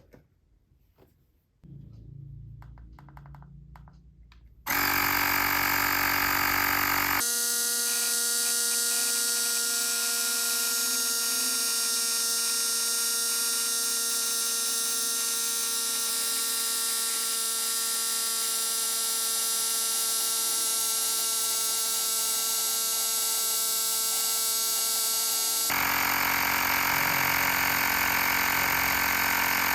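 Xiaomi Mijia portable air compressor switching on about five seconds in and running with a loud, steady, even-pitched buzz while pumping up a flat tyre. A few faint clicks come before it starts.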